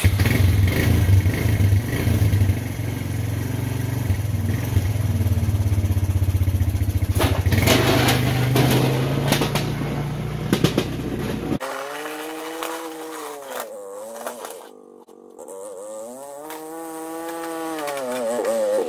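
A 1989 Suzuki 160cc ATV's engine runs close by as it pulls away plowing snow, with a run of clatters about seven to eleven seconds in. About twelve seconds in, the close rumble cuts off suddenly. The engine is then heard farther off, its pitch rising and falling twice as it revs and eases off.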